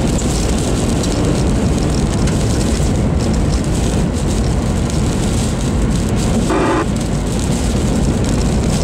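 Steady road and wind noise inside a moving car, with rain spattering on the windshield. A brief voice sounds about six and a half seconds in.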